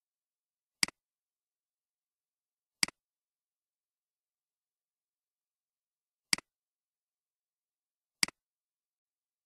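Four computer mouse-button clicks, each a quick double tick of press and release, about two, three and a half, and two seconds apart, with dead silence between.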